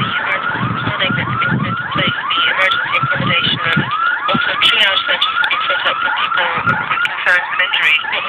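An electronic siren sounding in quick rising whoops, about three a second, repeating without a break. A low rumble sits under it for roughly the first half.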